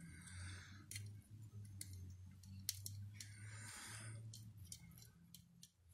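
Scattered light clicks of metal valve-train parts and hand tools being handled as a small-block Chevy valve spring is pushed down and its keepers are set, over a low steady hum.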